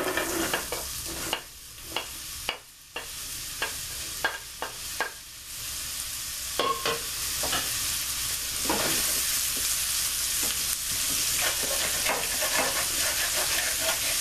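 Sliced onions and chopped green and red bell peppers dropping into bacon grease in a nonstick frying pan and sizzling, with a wooden spoon knocking and scraping as they are stirred. The sizzle builds over the first several seconds and then holds steady and loud.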